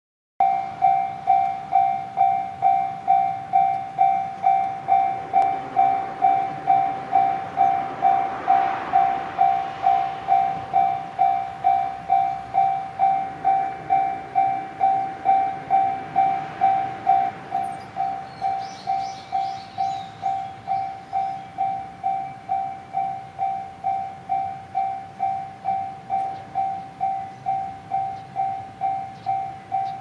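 Japanese railway level-crossing warning bell ringing, a repeated electronic clang about twice a second, while the barriers come down. It gets a little quieter after about 17 seconds, once the barriers are lowered. A short rush of noise comes around 9 seconds in.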